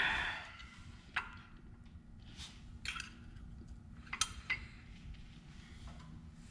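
Faint, sparse clicks and light metallic taps of parts being handled as a toothed pulley is fitted onto an aluminium water pump, about five small knocks spread over a few seconds, over a low steady hum.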